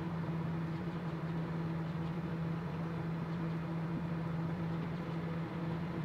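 Microwave oven running with a steady hum, heating an epoxy resin blank with popcorn kernels cast in it; no kernels pop.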